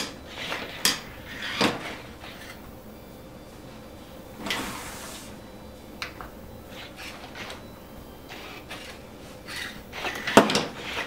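Scattered plastic clicks and knocks as the animatronic Legendary Yoda toy turns its body and moves its arms and cane, with a short rustle about four and a half seconds in and louder knocks near the end.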